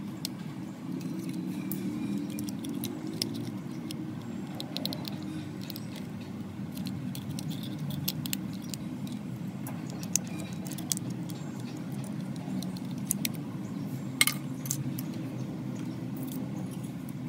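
Scattered small metallic clicks and clinks, the loudest about ten and fourteen seconds in, over a steady low hum.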